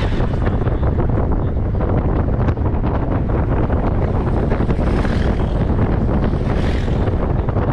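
Wind buffeting a GoPro Hero 8's microphone as a steady, heavy rumble, with a moving safari vehicle running underneath.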